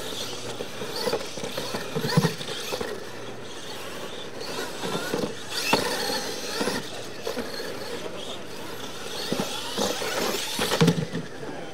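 Radio-controlled monster trucks racing on a dirt track: a steady whine of their motors and the hiss of tyres on loose dirt, with a few sharp knocks as they hit ramps and land, the loudest near the end.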